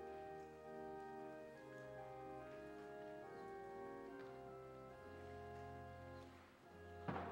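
Organ playing offertory music in slow, held chords over a sustained bass, faint. A single sharp knock sounds near the end.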